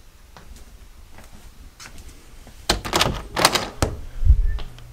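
A door being opened and shut: after a quiet start, a quick run of sharp clattering knocks about three seconds in, then a dull low thud near the end.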